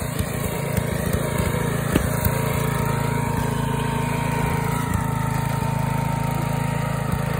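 Riding mower engine running at a steady pitch as the mower drives away along a dirt track, with a few faint knocks and rattles.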